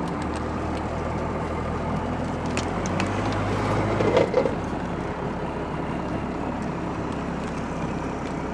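Engine and road noise heard from inside the cab of a slow-moving vehicle. The engine's low hum drops away about four seconds in as it slows, and a brief squeak comes at about the same moment.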